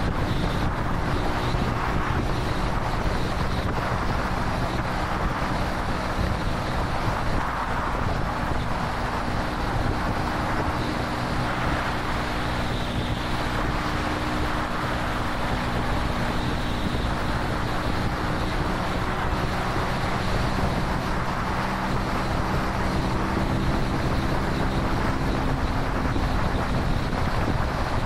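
Vitacci XMT 250 motorcycle running at a steady cruise of about 56–57 mph, its engine a constant drone under heavy wind rush on the microphone.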